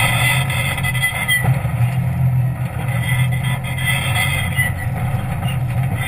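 Jeep engine running steadily at low speed under load as it crawls up a rocky off-road trail, heard from a camera mounted on its hood.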